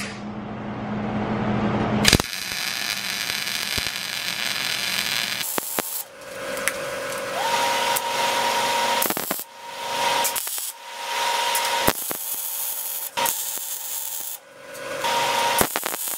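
MIG welder laying short beads on a steel motorcycle frame neck: a crackling hiss that starts about two seconds in and then stops and restarts in several bursts of one to three seconds each.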